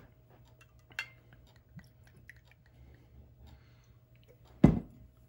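Quiet handling of a glass wine bottle: scattered light clicks and taps, a sharper tick about a second in, then one loud thump near the end.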